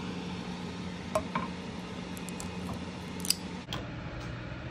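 A few light clicks and scrapes of a utensil against a bowl of tuna-and-potato fishcake mixture, over a steady low hum that drops lower about three and a half seconds in.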